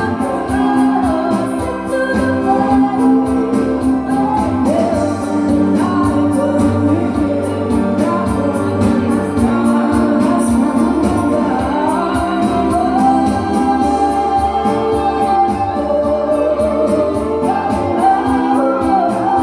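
Several voices singing together in a choir-like blend, holding long notes in a pop song medley.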